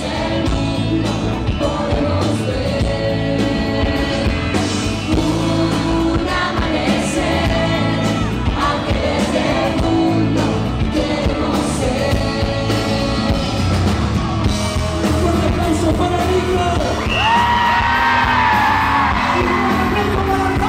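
Live pop-rock band playing with singing, heard in a large hall. Near the end, shrill screams rise from the audience over the music.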